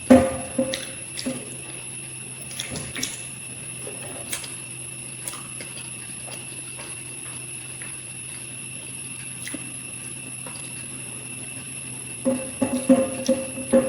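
Close-miked eating sounds, with mouth noises, food and small clicks and knocks against the dish, loudest just at the start and again in a cluster near the end, over a steady electrical hum.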